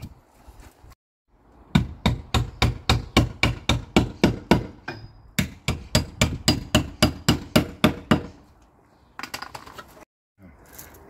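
A hammer driving mushroom-plug insulation fixings into the wall: a steady run of about twenty sharp blows, roughly three a second, starting about two seconds in and stopping after about eight seconds.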